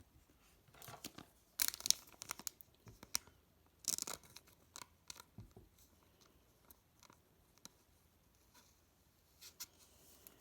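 Trading card pack wrapper tearing and crinkling in two short bursts, about two and four seconds in, with light clicks and rustles of cards being handled.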